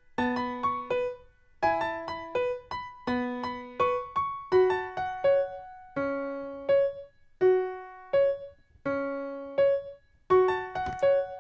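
Background music: a light, bouncy electric-piano melody of short plucked notes in repeating phrases.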